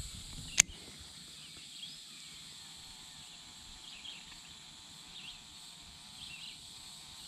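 Quiet creek-side ambience: a steady faint high insect drone with a few short high chirps, and one sharp click about half a second in.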